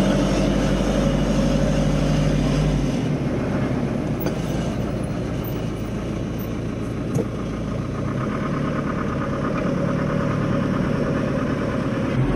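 Camper van driving: steady engine hum and road noise. The engine's low hum drops away about three seconds in, leaving a steady rush of tyre and road noise.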